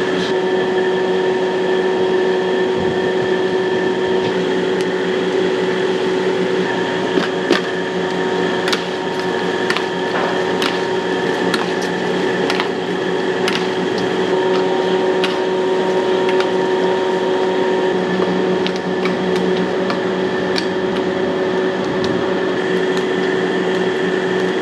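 Steady mechanical hum of a wok stove's burner and fans, with scattered sharp metal clicks of a utensil against the wok.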